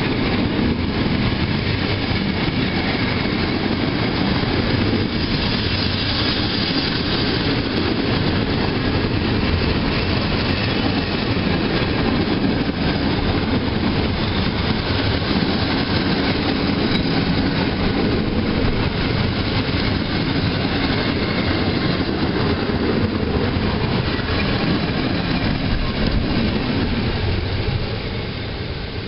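Passenger coaches of a departing PKP TLK express train rolling past close by, a steady noise of wheels on the rails. It drops away near the end as the last coach goes by.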